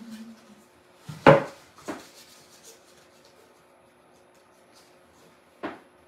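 Knocks and handling sounds of a wooden craft panel and a flower bundle on a tabletop: a sharp knock about a second in, a lighter one just after, and another near the end.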